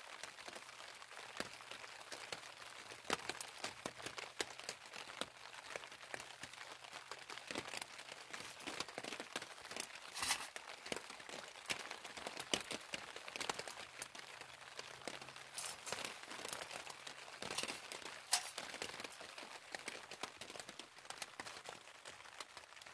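Rain ticking steadily on a plastic tarp, with louder cracks and snaps now and then as small dry twigs are broken and fed into a burning twig camp stove.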